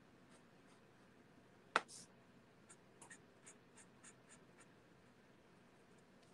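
Stampin' Blends alcohol marker scratching faintly across cardstock in short colouring strokes, about three a second. A single sharp click comes about two seconds in.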